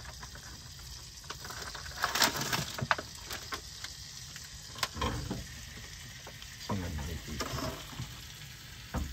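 Pieces of Mifu tipped from a plastic tray into a hot pan of melted butter, sizzling as they land, with a few sharp knocks of tray and pieces.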